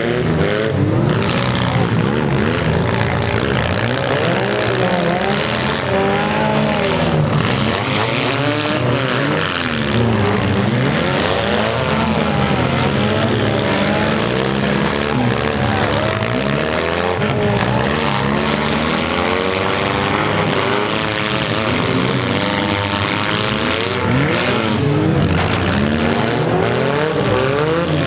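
Several four-cylinder demolition derby cars revving and running at once, their engine pitches rising and falling over one another.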